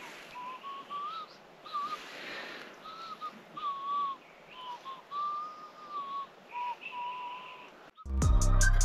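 A person whistling an unhurried tune in short notes, some sliding up or down in pitch. Music cuts in near the end.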